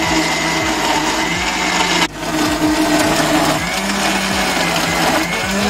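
Electric countertop blender running, blending chopped peaches with ice and water; the motor's pitch wavers slightly as the load changes. The sound drops out for a moment about two seconds in, then carries on.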